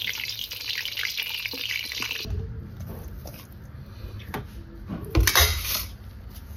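Batter-coated shrimp deep-frying in hot oil in a wok, a dense crackling sizzle that cuts off abruptly about two seconds in. After that comes quieter handling of cut vegetables being tossed by hand in a stainless steel bowl, with a brief louder clatter about five seconds in.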